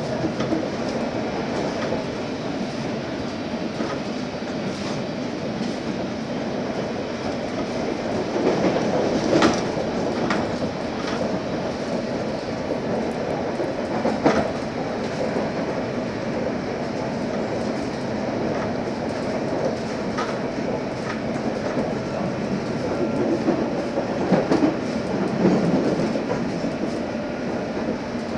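Interior of a London Underground S8 Stock train running at speed: steady running noise of wheels on rail, broken by scattered clacks over rail joints and points, the loudest about nine and fourteen seconds in.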